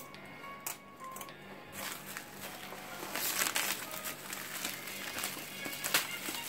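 Plastic stretch wrap and bubble wrap crinkling and rustling as hands pull it off a parcel, loudest about three seconds in, over background music.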